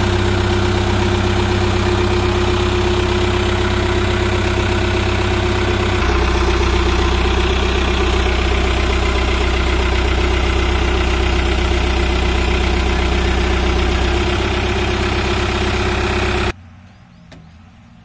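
Case 851EX backhoe loader's diesel engine running at a steady idle, its low note shifting slightly about six seconds in. It stops suddenly near the end.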